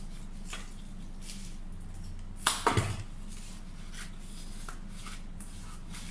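Stiff foliage and stems rustling and being handled as leaves are worked into an arrangement, with a quick cluster of sharp clicks and knocks about two and a half seconds in. A steady low electrical hum runs underneath.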